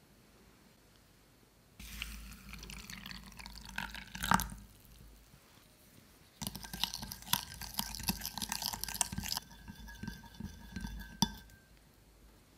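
Hot water being poured into a small glass bowl of yeast and sugar, then a wooden stick stirring the mix and clinking against the glass. The glass rings after the clinks, and the sharpest clink comes about four seconds in.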